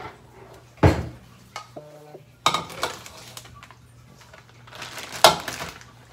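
White bowls and dishes set down and handled on a granite countertop: a sharp knock about a second in, some clattering in the middle, and another sharp knock near the end.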